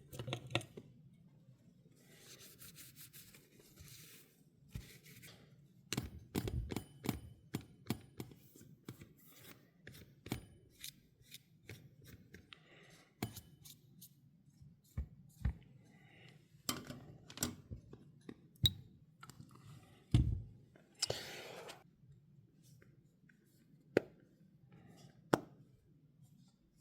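Small clicks, taps and scrapes of hand tools and phone parts being handled during an iPhone battery replacement, with one longer rasping, tearing sound about three quarters of the way through.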